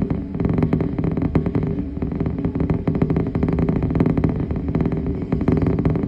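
Norfolk Southern freight train's boxcars and tank cars rolling past: a steady rumble of steel wheels on rail with rapid clicking and rattling.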